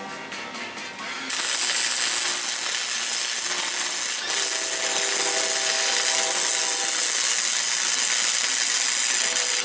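Wire-feed (MIG) welder arc crackling and hissing as a bead is laid on a steel bracket. It strikes up about a second in and breaks off briefly just before halfway.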